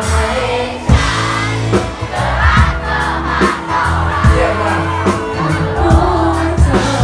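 A live band plays loudly at a concert, with singing and crowd voices over it. The music gets suddenly fuller right at the start, with a regular beat of sharp strikes.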